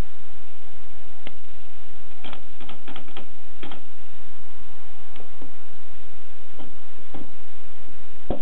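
Keys of a 1920s Erika typewriter striking: a quick run of about half a dozen strokes a couple of seconds in, then scattered single strokes, over a steady hiss.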